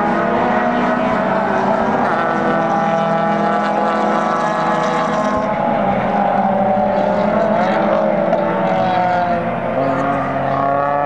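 Several race cars' engines running hard and overlapping, their pitch rising and falling as the cars come off and back onto the throttle while passing one after another.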